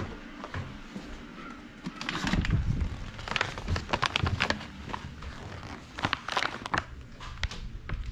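Stand-up pouch of dog training treats crinkling and rustling in irregular bursts as it is handled. It picks up about two seconds in.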